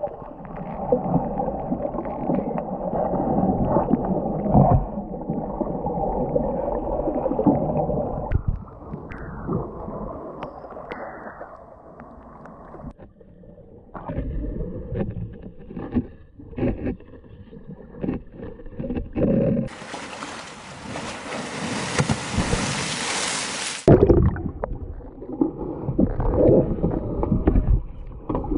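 Muffled underwater sloshing and gurgling as an elephant wades and swims in a pool, heard through a camera under the water, uneven with scattered knocks. A few seconds of steady hiss come about two-thirds of the way through.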